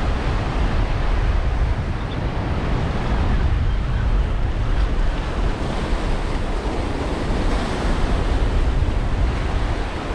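Sea surf washing and breaking against a rocky shoreline, swelling and easing, with wind rumbling on the microphone.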